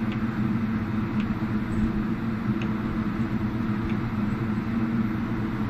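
Steady low droning hum, even in level, with a few faint light ticks about once a second or so.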